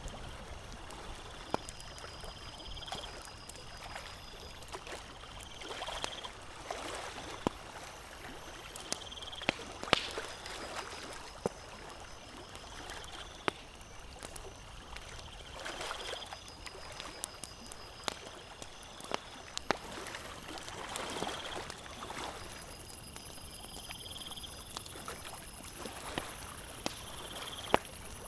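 Campfire crackling with sharp pops, over lake water lapping in gentle swells every few seconds. A short high trill repeats every few seconds.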